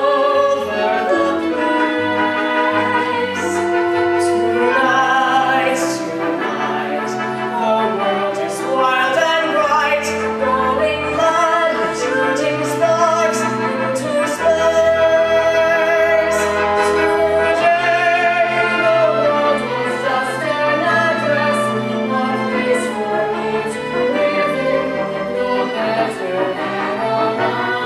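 A young man and a young woman singing a musical-theatre love duet with vibrato over held instrumental accompaniment.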